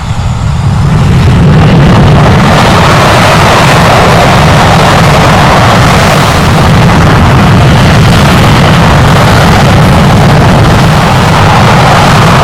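Red Arrows BAE Hawk jets departing with their Rolls-Royce Adour turbofans at takeoff power, surprisingly loud for such small jets. The noise swells over the first second or two, then holds steady.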